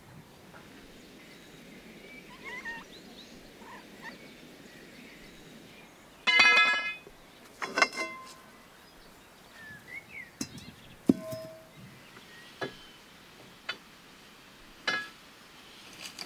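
Metal rod scraping and clinking against a steel pipe turning in a bearing, with one loud high screech about six seconds in, a shorter one soon after, and several sharp clinks and knocks later, one ringing briefly. Birds chirp faintly in the background.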